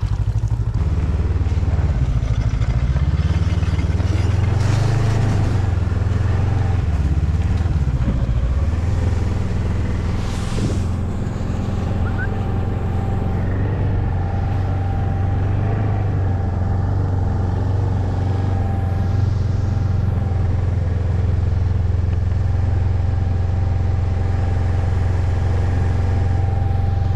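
Engine running continuously, its pitch shifting up and down for several seconds early on and then holding steady.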